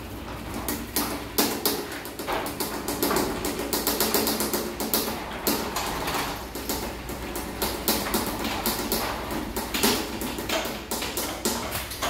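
Chain-drive garage door opener running a new CHI 2250 sectional garage door down, the motor running under a dense, rapid rattle of clicks from the chain and the rollers in the tracks. The noise drops off near the end as the door reaches the floor.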